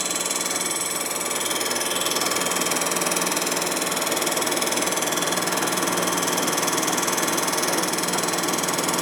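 Metal-cutting machine running steadily as it takes a light resurfacing cut, about two thousandths of an inch, across a warped Harley-Davidson Sportster cylinder head, with a high hiss over the machine's running. It gets a little louder about two seconds in.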